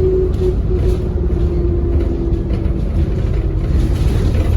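ADL Enviro400 double-decker bus running, a steady low rumble with a single whine that sinks slightly in pitch over the first three seconds and then fades.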